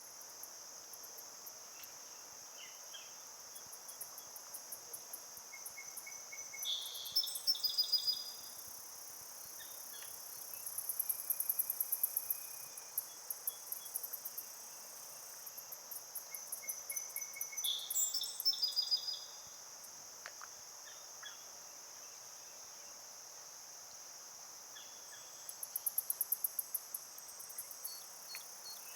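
Wetland insect chorus: a steady high trill, joined several times by bursts of rapid, pulsed, even higher calls. Twice, short loud chirps cut through.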